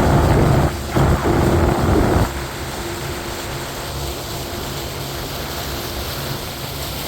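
Small fishing boat's motor running steadily, with a louder rush of wind and water noise for the first two seconds or so.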